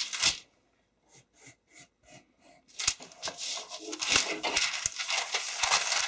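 Felt-tip marker making faint short strokes on thin pattern paper, then the paper rustling and rubbing against the table as it is shifted and turned, from about three seconds in.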